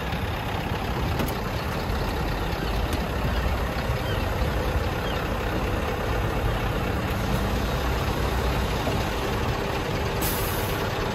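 Scania V8 tractor unit idling steadily while its air suspension is raised on the wander lead to lift the fifth wheel up to the trailer, with air hissing and a short hiss about ten seconds in.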